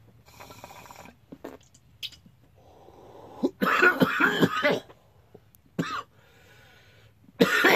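A man coughing hard from a bong hit: a short draw through the bong just after the start, then a loud coughing fit about three and a half seconds in, a single short cough, and a second loud fit near the end.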